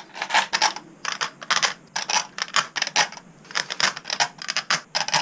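Metal busbars and terminal hardware clinking against the terminal studs of a row of LiFePO4 battery cells as they are fitted by hand: a quick, irregular run of sharp metallic clicks.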